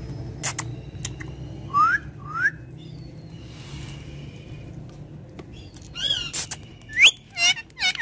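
Ringneck parrot whistling and calling: two short rising whistles about two seconds in, then a quick run of wavering, warbling calls in the last two seconds.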